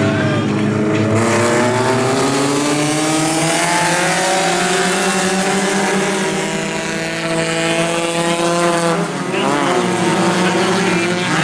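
A pack of four-cylinder dirt-track race cars accelerating together, several engine notes climbing steadily in pitch. Near the end they drop briefly and climb again.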